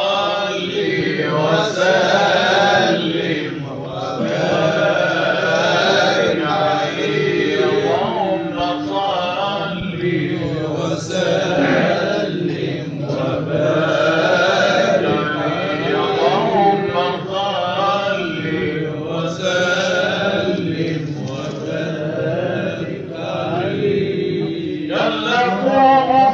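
Egyptian ibtihal: male religious chanting in long, wavering melismatic phrases with short pauses between them, heard through an old live recording.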